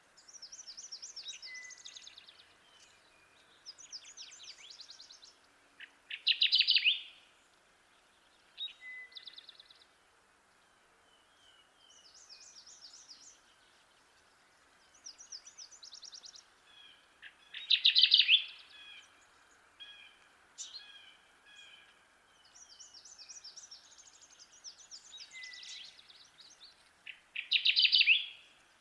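Kirtland's warbler singing its loud song three times, about once every eleven seconds, each song about a second long. Fainter, higher trills and chips from other birds sound in between.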